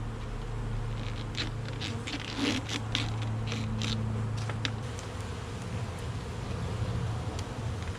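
Honeybees buzzing steadily in an open hive, with a run of sharp clicks and scrapes from hive equipment being handled during the first half.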